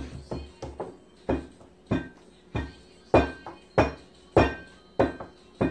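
Flour-tortilla dough being slapped and patted flat by hand on a stone countertop: a steady run of sharp slaps, about one every 0.6 s, starting about a second in.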